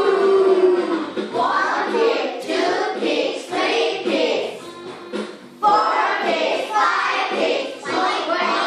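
A class of young children singing an English song together, with a brief break a little past halfway.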